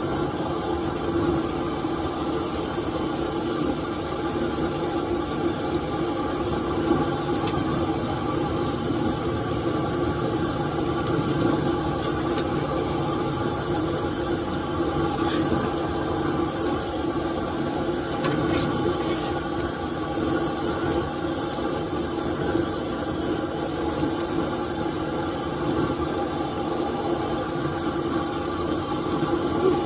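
A steady rushing noise with a low machine hum that does not change.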